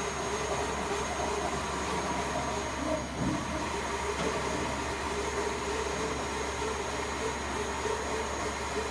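Bridgeport Romi EZ Path CNC lathe running with a steady mechanical hum and a few steady tones.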